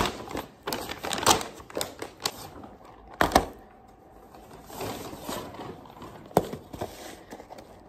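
Brown paper takeaway bag rustling and crinkling as a white hinged takeaway food box is pulled out and handled, with irregular clicks and knocks from the box, the sharpest a little over three seconds in and again near the end.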